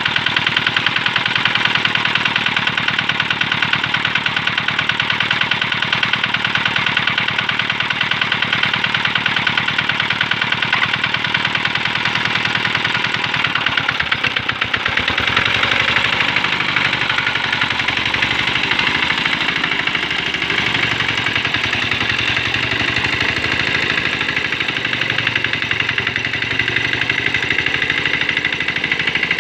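Small single-cylinder diesel engine of a hand tractor running steadily with a fast, even knocking beat; its note shifts slightly about halfway through.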